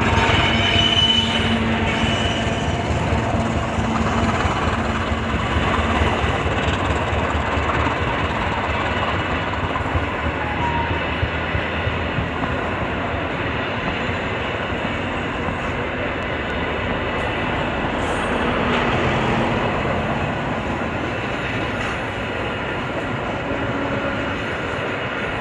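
Bengawan passenger train running on the rails, a steady loud rumble of wheels on track that eases off slowly.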